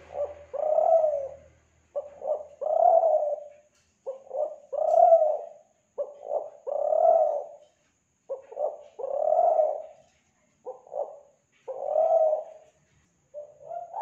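Kelantan-type spotted dove (tekukur) cooing: the same phrase repeated about every two seconds, two or three short notes followed by one longer drawn-out coo.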